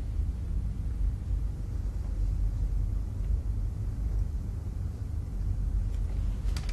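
Low, steady rumbling room tone with no speech, and a couple of faint clicks near the end.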